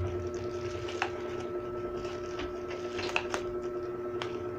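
Bubble wrap and plastic packaging being handled: scattered light clicks and crinkles, a few sharper ones about a second in and around three seconds in, over a steady hum.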